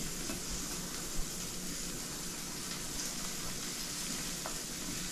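Sausage sizzling steadily in a frying pan, while a wire whisk stirs thick batter in a glass bowl, with one light clink about a second in.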